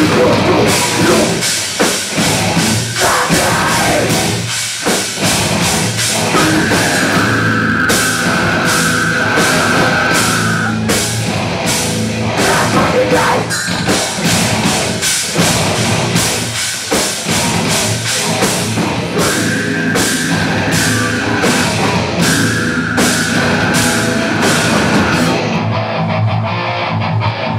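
Live heavy metal band playing at full volume: distorted electric guitars and bass over a drum kit with a fast, pounding beat. A high note is held for several seconds twice. Near the end the bright top end drops out, leaving a low, heavy riff.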